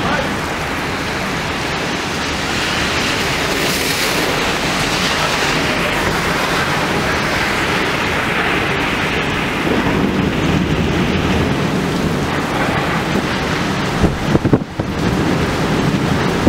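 Thunderstorm: heavy rain pouring in a strong wind, a loud, steady rush with wind buffeting the microphone. A low rumble of thunder swells about ten seconds in, and a few brief thumps come about fourteen seconds in.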